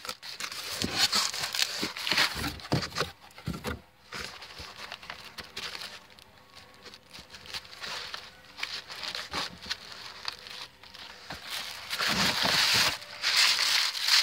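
Cardboard box flaps being handled and pulled open, with the white paper packing inside rustling and crinkling; the rustling is loudest near the end.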